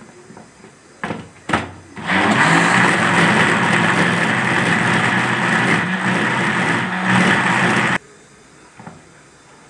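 Electric mixer-grinder motor, after two brief pulses about a second in, running steadily for about six seconds and cutting off suddenly, grinding chana dal with water in its jar.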